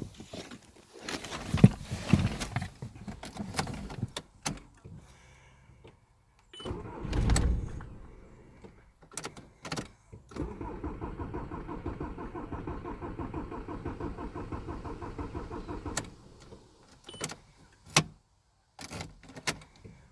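Audi A4 B7 2.0 TDI diesel being cranked by its starter motor for about five and a half seconds with an even pulsing, stopping suddenly without the engine catching: a hard start that the owner traced to the in-tank fuel pump losing pressure. Scattered knocks and clicks come before and after, with a heavy thump a few seconds before the cranking.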